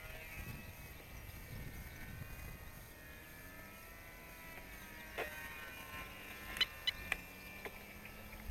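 Faint, steady buzz of a small RC model plane's motor and propeller high overhead, its tones drifting slowly in pitch. A few sharp clicks come in the second half.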